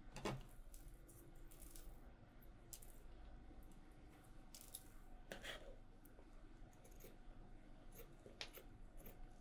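Faint handling sounds: a fabric pattern piece being smoothed on a table and a pair of tailor's scissors picked up, giving a few light clicks. Near the end the scissors start snipping through the fabric.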